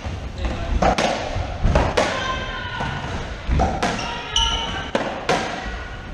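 Racquetball rally in an enclosed court: the hollow rubber ball cracking off racquet strings and walls, a hit every half second to a second, each echoing. Short high squeaks of sneakers on the hardwood floor come in between.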